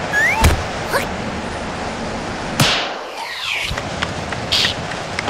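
Strong wind rushing steadily, with a few sharp knocks, and one long, loud whoosh falling in pitch about two and a half seconds in.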